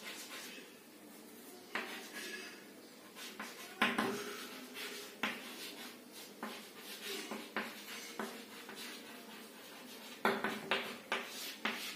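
Chalk writing on a chalkboard: faint scratchy strokes broken by sharp taps as the chalk strikes the board, with a quick run of taps near the end.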